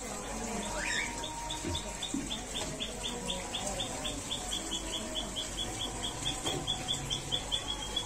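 A cricket chirping: a steady run of short high pulses, about five a second, that starts about a second in and merges into a continuous trill near the end.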